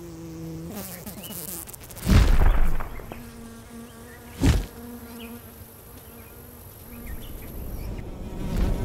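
Buzzing of a flying insect, a steady fly-like drone. A loud rushing burst cuts in about two seconds in, and a short sharp hit comes about four and a half seconds in.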